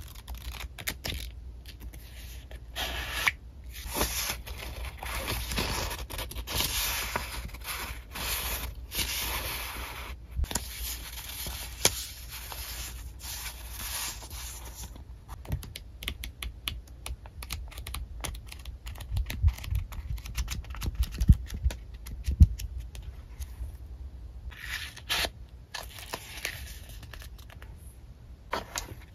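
Sheets of a thick paper memo pad being riffled and fanned through by hand: dense papery rustling and flicking for the first half, then sparser flicks and handling. A few soft knocks come about two-thirds of the way in.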